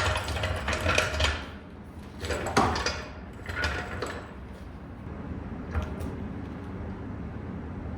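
A few clattering knocks and clinks, as of objects being handled, in the first half, the sharpest about two and a half seconds in, over a steady low hum.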